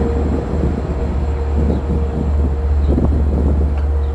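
Wind buffeting the microphone with a loud low rumble, and the railroad crossing's warning bell dinging repeatedly underneath while the crossing is activated.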